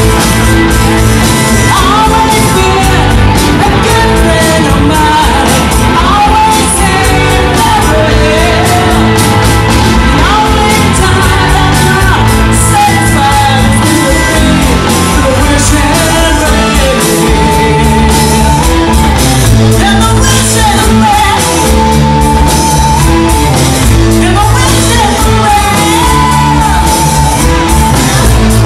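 Rock band playing live at full volume: electric guitars and a drum kit under a sung lead vocal.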